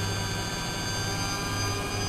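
Lloyds 825 washing machine running, its motor giving a steady whine over a low hum.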